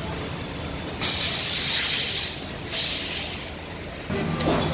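Air brakes of a city transit bus hissing: a loud burst of released air about a second in that lasts just over a second, then a shorter second hiss, over a steady low rumble of idling buses.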